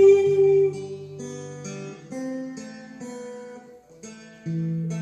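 Acoustic guitar playing the song's closing bars alone: plucked and strummed chords that ring out and fade, with a louder fresh chord about four and a half seconds in.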